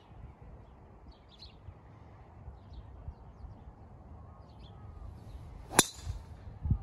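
Golf driver striking a teed-up ball: one sharp, loud crack about six seconds in, with a brief high swish around the strike.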